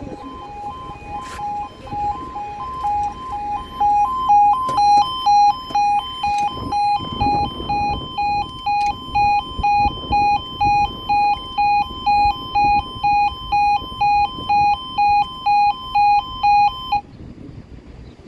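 Railway level crossing warning alarm sounding its two-tone yodel, switching back and forth between two notes at roughly two beats a second. It gets much louder about four seconds in and cuts off about a second before the end, with the barriers down.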